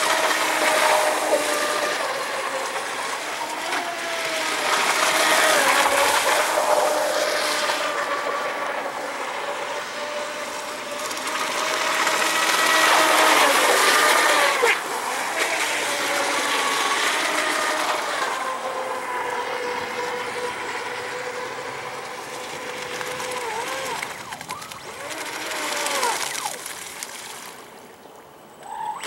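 Electric Miss Geico RC speed boat running on a pond. Its motor whine rises and falls in pitch with the throttle over the hiss of the hull's spray, swelling on close passes and easing off near the end as the boat slows.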